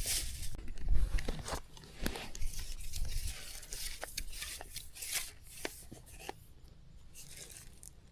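Close rustling and crackling with many scattered sharp clicks, loudest in the first two seconds and fading away toward the end.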